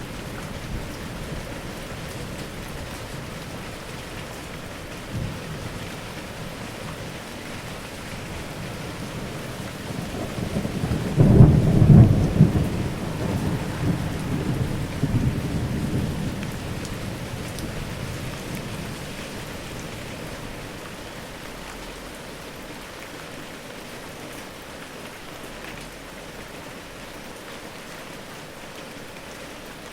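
Steady rain falling, with one rumble of thunder that swells about a third of the way through and rolls on for several seconds before fading back under the rain.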